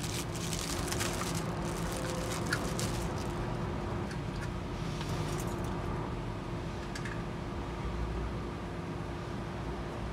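Plastic bag crinkling and rustling as a new PID temperature controller is unwrapped by hand, for the first three seconds or so, then a few scattered clicks. A steady background hum with a faint constant tone runs underneath.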